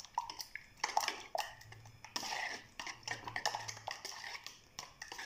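Eggs being beaten by hand in a bowl, the utensil clicking and scraping irregularly against the bowl's sides.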